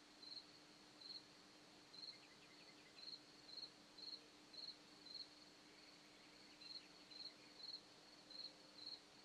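A cricket chirping faintly: short high chirps about one and a half times a second.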